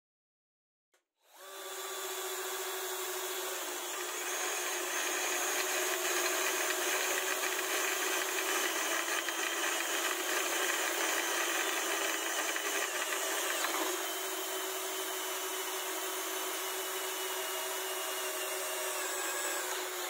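Electric drill running steadily as freshly sharpened twist bits bore through steel flat bar, starting about a second in after a brief click. The motor's steady whine gets a little louder after a few seconds and shifts slightly about two-thirds of the way through.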